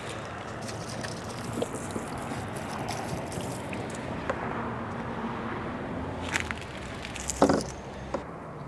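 Plants being watered: water splashing and running onto soil and leaves, over a steady low background hum. A few sharp handling clicks and knocks come in the second half, the loudest near the end.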